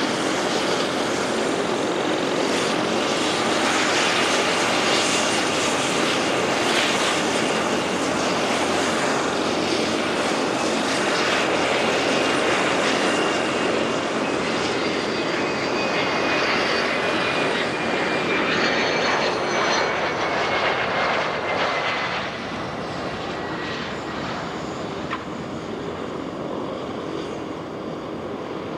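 Private jet's turbofan engines running loud and steady, with a thin high whine that slowly falls in pitch through the middle; the sound eases off a little after about twenty-two seconds.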